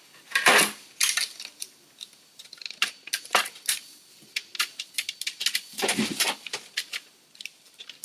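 Small hard plastic and metal parts of a music controller clicking and rattling as they are handled, with many light taps and two louder knocks, one about half a second in and one around six seconds.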